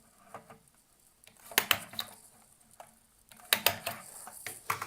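Office stapler clacking shut as it staples paper strips: two loud double clacks about one and a half and three and a half seconds in, with lighter clicks and handling between them and another clack near the end.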